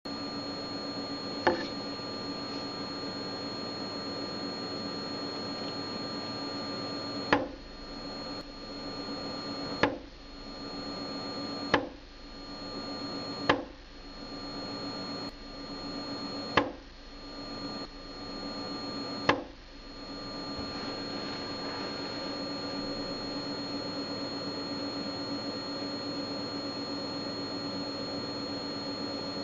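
Steady electrical hum with a thin high whine from lab electronics, broken by seven sharp knocks, most of them two to three seconds apart. The knocks are taps on the laser setup, made to disturb the laser deliberately.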